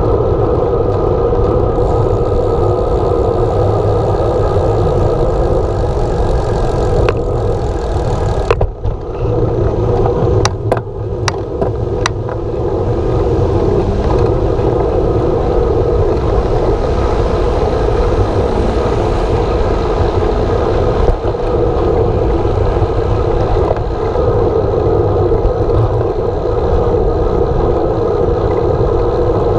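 Steady wind rush over a handlebar-mounted camera on a moving road bicycle, mixed with tyre and passing-traffic noise. A few sharp clicks come about a third of the way through, where the rush briefly eases.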